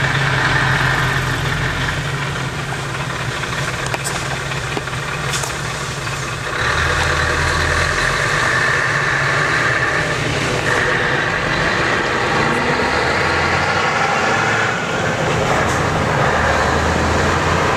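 Scania 144G 460 hooklift truck's V8 diesel engine running, a steady low hum that steps up louder several times, about seven, eleven and sixteen seconds in.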